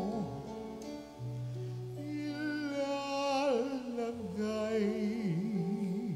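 Slow Tagalog offertory hymn. A singer with a wavering vibrato holds long notes over sustained instrumental accompaniment with steady held bass notes.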